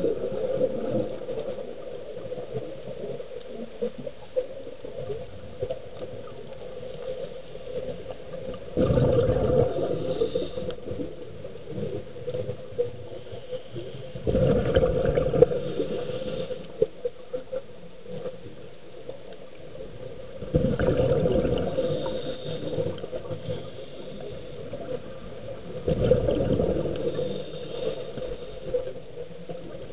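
A scuba diver breathing through a regulator, heard underwater. A rush of exhaled bubbles comes about every five to six seconds, four times, with muffled quiet between.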